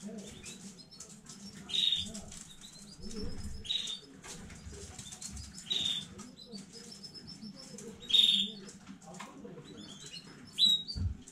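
Domestic canary giving loud, short chirps about every two seconds, with fainter high twitters, soft clicks and rustling between them. A faint steady low hum runs underneath.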